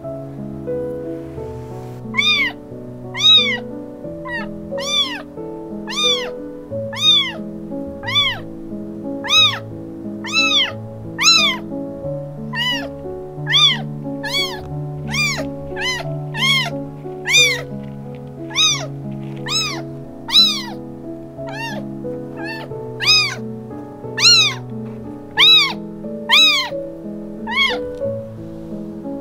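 A tiny calico kitten meowing again and again: short high-pitched cries about once a second, each rising and then falling in pitch, over background music.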